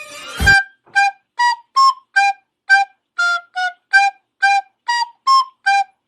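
A thump about half a second in, then a run of about a dozen short, separate flute-like notes at several different pitches, tooted one after another like a simple tune.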